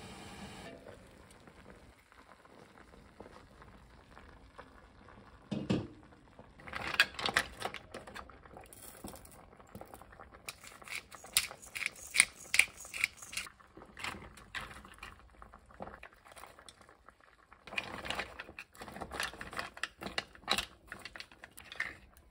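Mussels cooking in broth in an enamelled cast-iron pan: a low bubbling haze, a single dull knock, then bursts of sharp clicking and clattering as the shells knock against each other and the pan.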